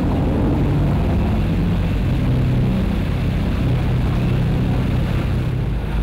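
River passenger boat engines droning steadily and low, over the rushing noise of water as the boat gets under way.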